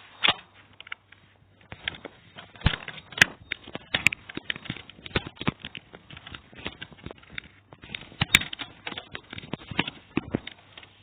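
Irregular clicks and knocks from the AEG Airmax vacuum cleaner being handled, its parts knocked and clicked together while the motor is not running.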